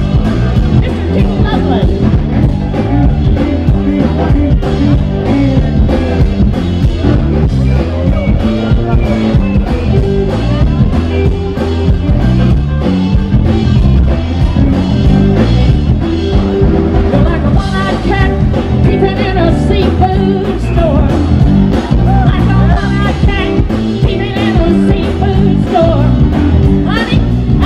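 Rock-and-roll music with guitar and a steady beat.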